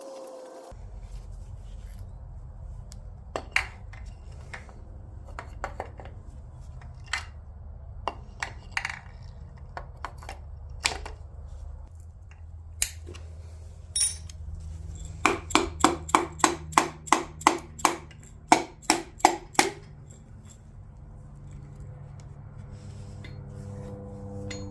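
Hand tools working on metal engine parts: scattered sharp metallic clicks and clinks, then a quick run of about fifteen sharp ringing taps, three or four a second, over a steady low hum.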